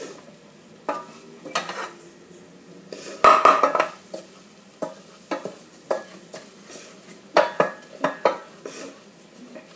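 Wooden spoon stirring arborio rice in a stainless steel pot: irregular scrapes and knocks of the spoon against the pot, the loudest a little after three seconds in.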